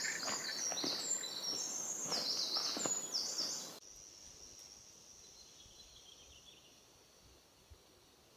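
Footsteps on a dirt forest trail with a run of high, quick notes ringing above them. About four seconds in the sound cuts to a faint, steady high hum of the forest that fades almost to silence.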